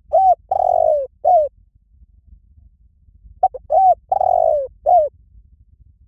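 Spotted dove cooing: two matching phrases about three and a half seconds apart, each a few short coos around one longer coo that falls in pitch at its end.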